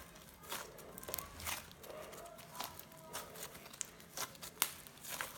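Fluffy butter slime being mixed by hand with food colouring worked into it: soft, irregular crackling and sticky clicks.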